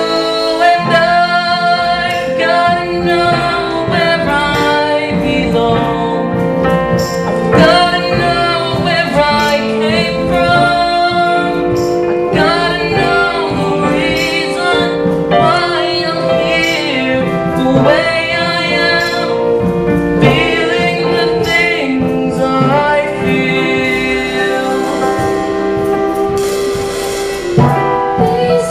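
Singing with instrumental accompaniment in a stage musical, sustained notes with vibrato over a steady backing.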